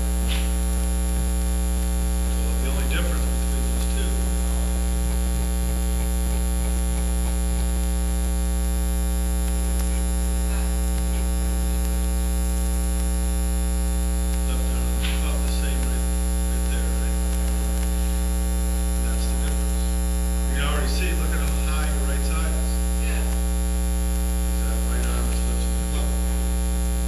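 Steady electrical mains hum, a low constant buzz with a stack of overtones, with a few faint brief sounds under it now and then.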